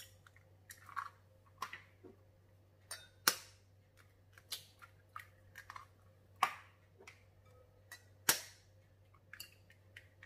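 Raw eggs being cracked with a kitchen knife over a glass bowl, one after another: a string of sharp taps and cracks of the blade on the shells, the loudest two about three and eight seconds in.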